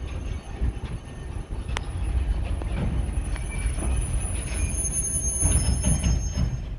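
Railroad caboose rolling along the track, heard from inside its cupola as a steady low rumble, with one sharp click a little under two seconds in.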